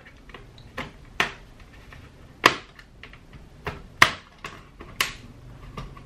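Plastic bottom case of an HP 15-BS laptop clicking as a thin metal pry tool is worked along its seam, its retaining clips snapping loose: about eight sharp clicks at uneven intervals.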